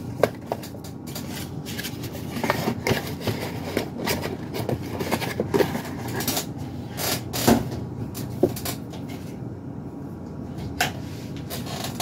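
A small cardboard box and its paper leaflet being handled on a desk and set aside: irregular light knocks, taps and rustles, with a quieter moment near the end.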